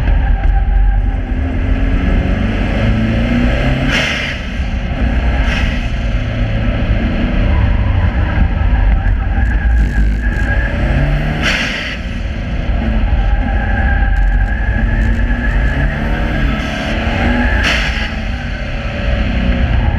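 Subaru Impreza's flat-four boxer engine revving up and falling back repeatedly as it is driven hard around a track, with a strong low rumble. A few short bursts of noise break in, about four times.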